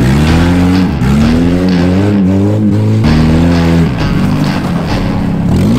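Chrysler PT Cruiser's four-cylinder engine being revved hard as the car is driven, its pitch climbing, dropping back and climbing again several times with acceleration and lifting off.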